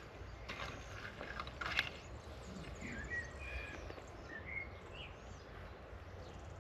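A garden hoe chopping and scraping into loose soil, two strokes in the first two seconds, then small birds chirping in short calls.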